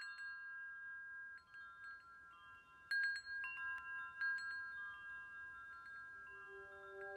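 Wind chimes tinkling: scattered high, bright strikes that ring on and overlap, with a small cluster of strikes about three seconds in. Near the end a lower held note comes in and grows louder.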